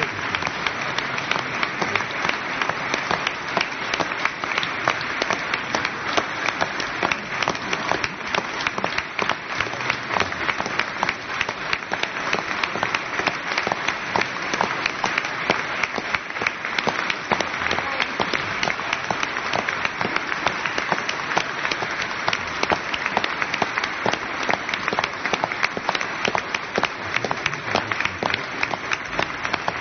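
Audience applauding, many hands clapping at a steady, even level throughout.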